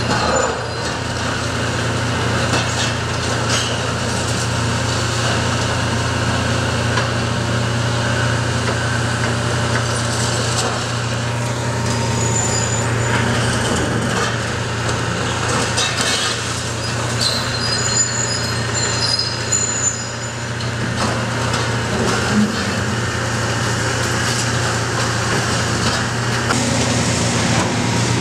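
Long-reach demolition excavator's diesel engine running steadily while its hydraulic crusher jaws break up reinforced-concrete floors, with scattered cracks and crashes of breaking concrete and falling rubble and a few brief high squeals.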